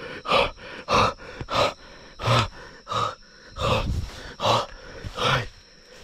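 Rhythmic heavy grunting gasps, about eight in six seconds, each a short loud breath with a groan of voice in it, with a faint steady high whine underneath.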